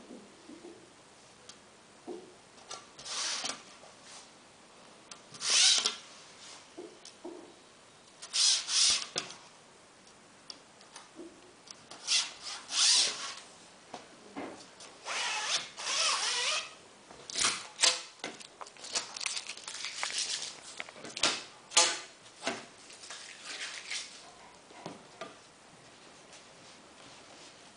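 Roller-blind fabric rustling and rubbing as it is slid along an aluminium bar and rolled up by hand, in a string of short, irregular bursts.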